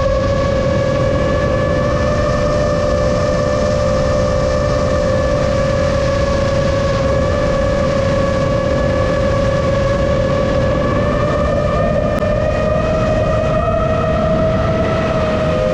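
Motors and propellers of a 7-inch FPV drone in flight: a steady, loud buzzing whine over a rushing noise, its pitch edging up and wavering about two thirds of the way through.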